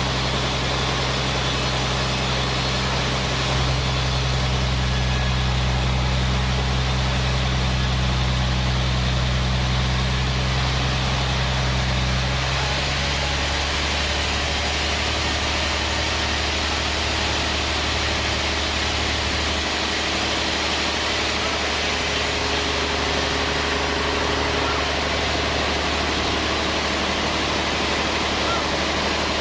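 Band sawmill machinery running with a steady low drone under a continuous hiss. The low hum changes pitch about twelve seconds in and shifts again later.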